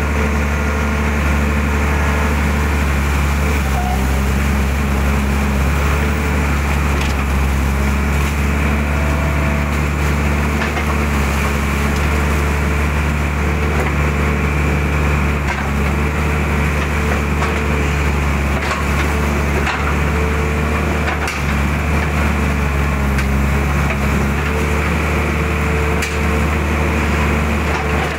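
Mitsubishi hydraulic excavator's diesel engine running steadily under working load as the bucket digs and dumps ditch mud, its pitch shifting slightly every few seconds, with a few faint knocks.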